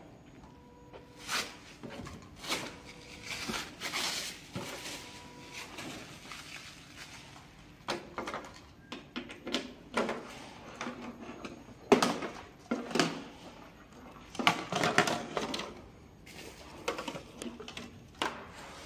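Plastic stretch wrap crinkling and rustling as it is pulled off a scooter, with scattered clicks and knocks of parts being handled; one sharp knock about twelve seconds in is the loudest.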